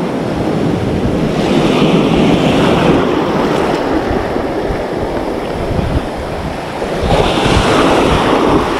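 Surf washing in over a shallow coral reef flat, with a stronger wave surging in about a second and a half in and another near the end. Wind buffets the microphone throughout.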